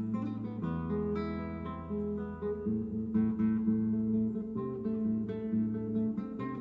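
Background music: acoustic guitar plucking and strumming a steady, Spanish-flavoured accompaniment over a bass line.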